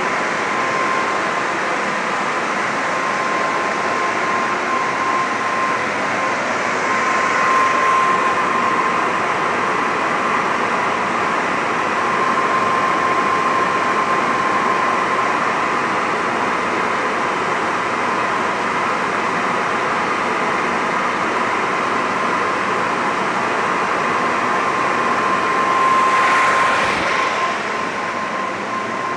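Rade Končar three-phase motor of an AC-DC motor-generator converter set running: a loud, steady whir with a steady high whine over it. A brief rise in level near the end.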